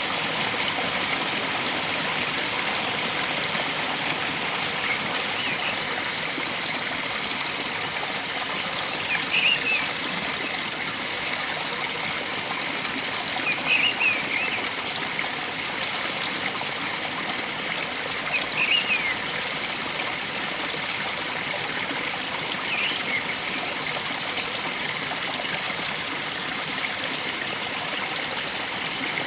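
Stream water flowing steadily, with a bird calling a short burst of chirps every four to five seconds.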